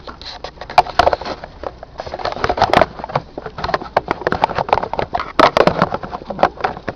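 Handling noise on the camera's own microphone: a dense, irregular run of clicks, knocks and scrapes as the camera is set back onto its stand.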